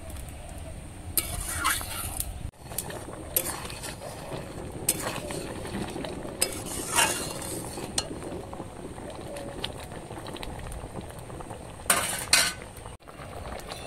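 A metal spatula stirs and scrapes in a two-handled metal wok of boiling stew, clinking against the pan every second or so, with a cluster of louder clinks near the end, over the steady bubbling of the pot.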